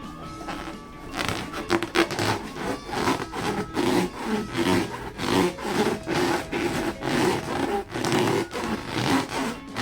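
Hands rubbing and squeezing a rubber balloon in quick repeated strokes, about two a second, each stroke giving a squeaky, rubbery rasp.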